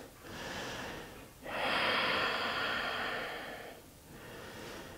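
A woman breathing audibly while holding a yoga pose: a soft breath, then a longer, louder breath of about two seconds, then another soft breath.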